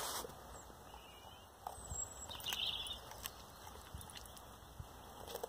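Dog crunching and gnawing on a raw broccoli stalk, with irregular crisp crunches and clicks. Birds sing in the background.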